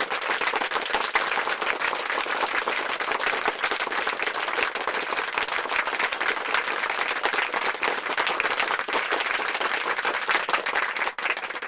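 Crowd applause, a steady mass of clapping that cuts off suddenly near the end.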